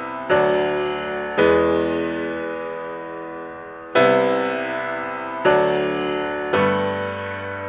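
Background music: slow piano-like chords, five struck in turn and each left to ring and fade away before the next.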